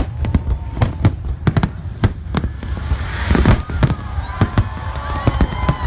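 A large fireworks display: rapid bangs, several a second, over a continuous low rumble, with thin whistling tones rising and falling through the second half.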